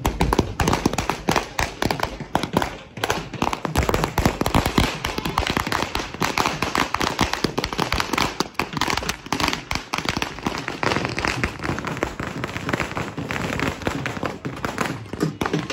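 A laid-out string of bijli bomb firecrackers going off: a rapid, unbroken crackle of many small sharp bangs.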